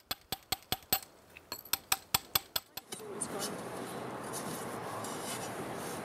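Quick, ringing metal taps, about five a second, of a hammer striking a stone-carving chisel, which stop about three seconds in. Steady outdoor noise follows as a spade digs into soil.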